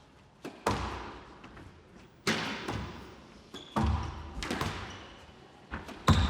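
Squash ball struck by rackets and cracking off the court walls in a rally: a series of sharp hits about every second and a half, each ringing on briefly in the hall.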